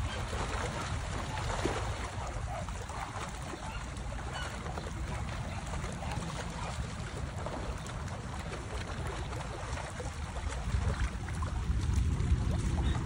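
Small bay waves lapping and splashing against rocks along a riprap shore, with wind rumbling on the microphone, stronger in the last couple of seconds.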